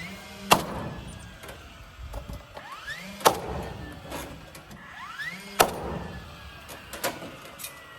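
A battery-powered nailer firing three nails into siding boards, about two and a half seconds apart. Each loud shot comes right after a short motor whine rising in pitch, with a few lighter knocks of the boards in between.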